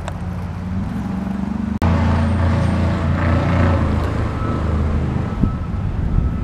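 A motor vehicle engine idling steadily, a low even hum, with a brief break and click about two seconds in.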